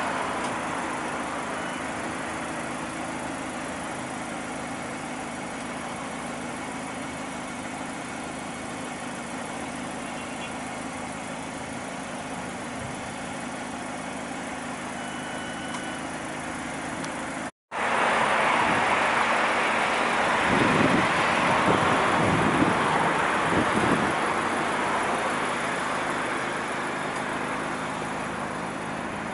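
Mazda MX-5 RF's 2.0-litre four-cylinder petrol engine idling steadily. A little over halfway the sound cuts out for an instant and comes back louder and closer.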